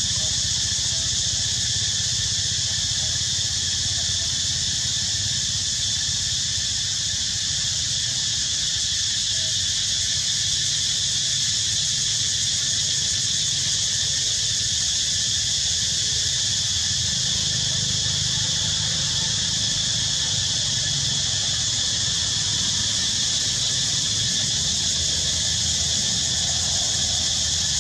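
Steady, unbroken high-pitched chorus of insects buzzing, over a low steady rumble.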